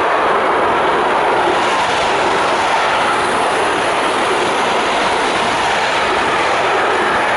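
Container freight train passing close by at speed: flat wagons loaded with shipping containers rolling on the rails, a loud, steady noise of wheels and running gear.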